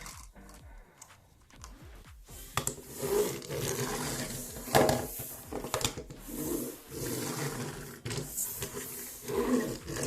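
Plastic packaging crinkling and rustling as a toy is handled, starting about two and a half seconds in, with sharp clicks, the loudest near the middle.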